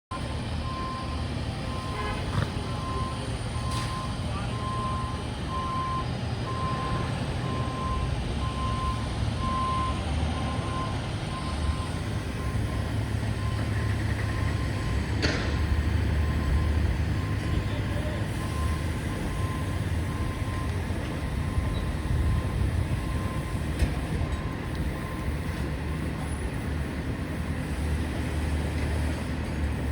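Steady low rumble of street traffic and heavy vehicles, with a reversing alarm beeping about one and a half times a second for the first ten seconds or so, then fading away. A single sharp clank about fifteen seconds in.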